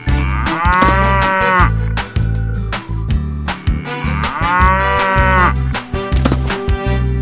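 Cow mooing twice, each moo about a second long and rising then falling in pitch, over background music with a steady bass beat.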